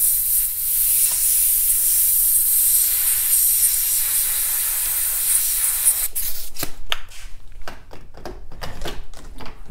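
Airbrush spraying gold paint, a steady high hiss that stops about six seconds in, followed by a quick run of short clicks.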